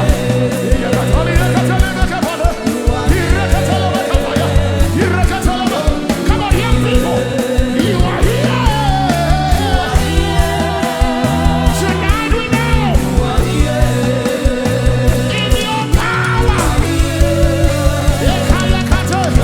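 Live gospel worship band playing, with voices singing over sustained chords and a steady drum beat.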